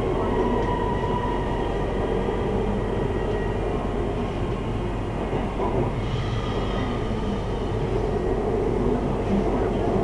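BTS Skytrain electric metro train running, heard from inside the car: a steady rumble with thin high whines that come and go.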